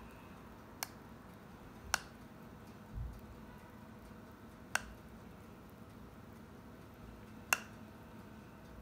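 Four sharp, separate clicks, a second or more apart, and one soft low thump about three seconds in, over faint room noise, while thick béchamel sauce is poured from a steel saucepan into a ceramic baking dish.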